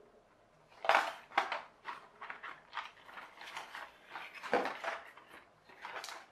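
Parts of a rubber-band-powered model plane kit being handled and put down on a desk: irregular clicks, taps and rustles, loudest about a second in and again a little past the middle.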